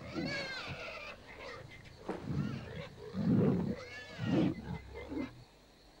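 Bush pig squealing in high, wavering cries while lions seize it, with deep lion growls in between. The noise dies away about five and a half seconds in.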